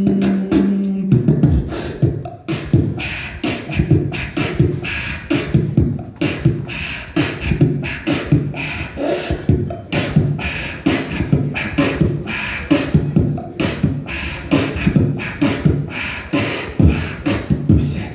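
Beatboxing through a microphone and PA: a held low note for about a second, then a fast, steady beat of mouth-made kick, snare and hi-hat sounds.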